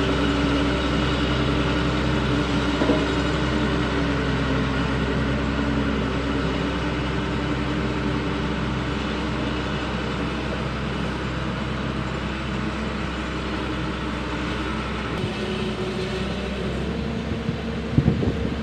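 Diesel engine of a single-drum vibratory road roller running steadily, with a steady hum and whine, growing gradually fainter as the roller drives away. A few thumps near the end.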